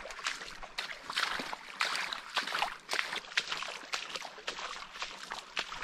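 Footsteps splashing through a shallow, sandy creek: a quick, uneven run of wet steps.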